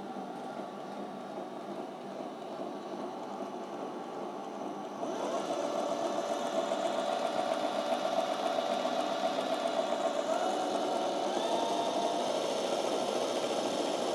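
Small 12-volt electric motor of a homemade lathe drilling attachment running steadily. About five seconds in it speeds up with a rising whine and gets louder, then holds a steady higher whine.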